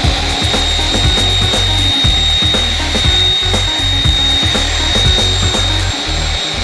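Hydraulic automatic aluminium circular saw with an 18-inch blade running, with a steady high whine over a busy, rhythmic low clatter of the machine.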